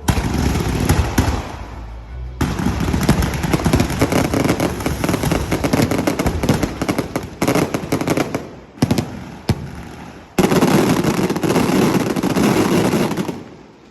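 Fireworks going off in dense, rapid volleys of sharp bangs and crackles, like a string of firecrackers. Two dips break the volleys, one about two seconds in and one around ten seconds, and the bangs die away just before the end.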